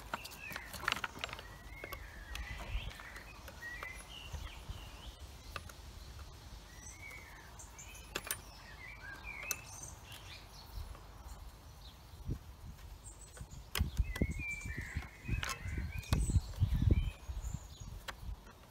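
Hand-tool work on a chainsaw: scattered clicks and knocks of a T-handle socket wrench on the bolts of the anti-vibration handle, with small birds chirping throughout. Louder knocks and handling rumbles come near the end.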